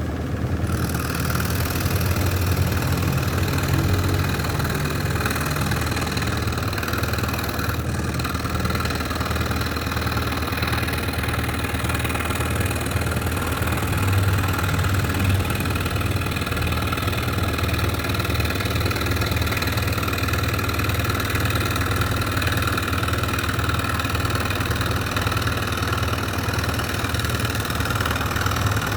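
Electric scroll saw running steadily, its motor humming and blade reciprocating as it cuts through wood.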